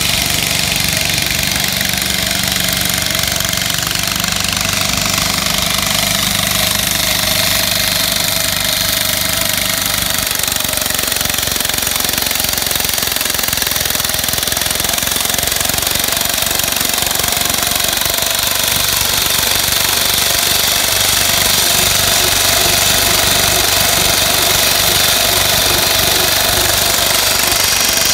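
Walk-behind road saw, run by a small engine, cutting a groove in pavement: a steady, loud grinding of the blade in the surface over the engine's running.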